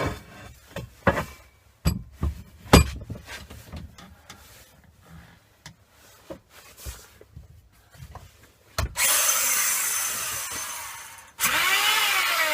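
Scattered knocks and clatter of handling steel for about nine seconds. Then an electric belt file starts grinding on the steel with a loud hiss, fades over about two seconds, stops briefly and starts grinding again near the end.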